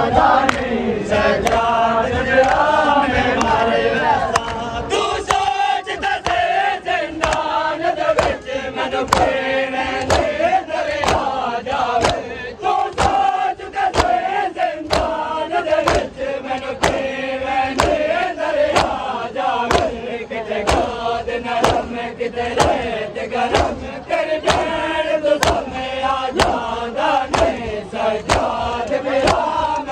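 Matam (seena zani): a crowd of men beating their bare chests with open hands in a steady rhythm, while men's voices chant a noha together.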